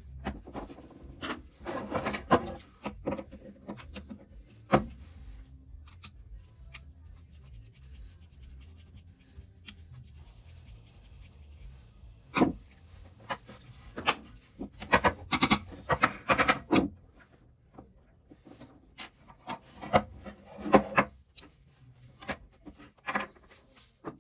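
Hand rubbing and scraping strokes on the butcher saw, in bouts of quick strokes with sharp clicks and knocks and quieter pauses between them.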